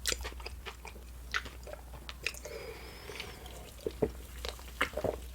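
A person chewing food close to the microphone, with irregular short clicks from the mouth.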